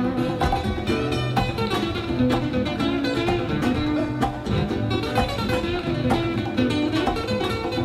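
Two acoustic guitars playing an instrumental passage, quick plucked and strummed notes, from an old cassette tape recording.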